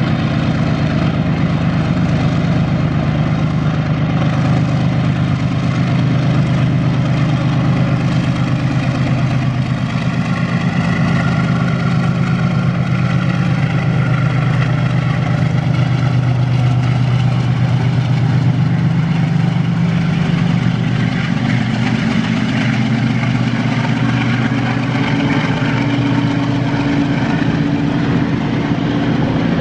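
Diesel freight locomotive's engine running with a steady, loud low drone as it hauls a double-stack container train past; the pitch of the drone shifts a little in the second half.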